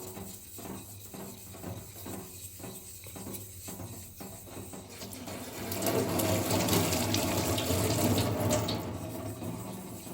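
Tap water running onto a whetstone being rinsed clean, starting about halfway through, after a run of soft, even strokes about twice a second.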